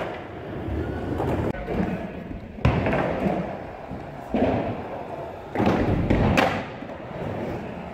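Skateboard wheels rolling on a smooth concrete floor, broken by several hard thuds and clacks of the board. The loudest come about a third of the way in and near the end, as the skater pops off a kicker ramp and lands.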